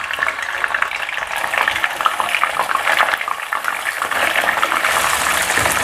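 Small whole fish sizzling and crackling in hot oil in a wok as more fish are added to deep-fry. The crackle grows denser after a second or so.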